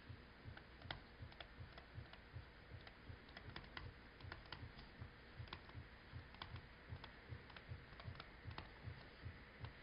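Faint, irregular ticks and taps of a stylus writing on a tablet, with a faint, regular low pulsing underneath.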